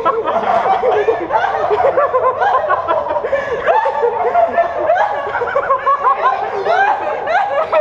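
Several people laughing, their laughs overlapping without a break.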